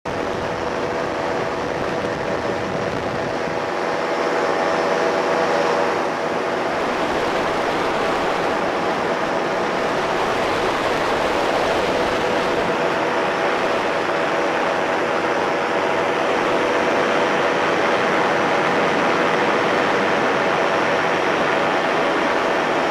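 Powered parachute's engine and propeller running steadily in flight, with rushing air noise over the microphone; it gets slightly louder about four seconds in.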